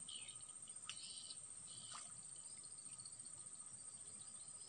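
Faint, steady, high-pitched insect drone, with a few short bird chirps near the start and two faint ticks about one and two seconds in.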